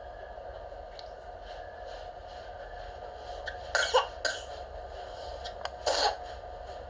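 A baby giving short little coughs as a form of babbling (cough-babbling): two close together about four seconds in, and a third about two seconds later.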